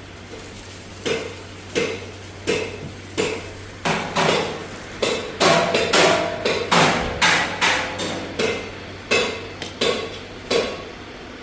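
A series of about fifteen sharp knocks, roughly one to two a second and loudest in the middle, over a low steady hum.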